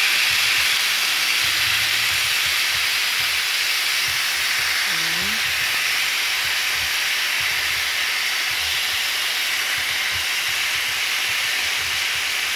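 Slices of lean pork sizzling steadily in hot oil in a frying pan while they are turned over. The meat is being seared on both sides to seal in its juices.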